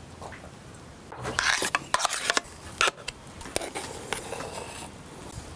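Metal spoon scraping and scooping mashed potato in a pan, with a few sharp clinks of metal on the pan. The scraping starts about a second in.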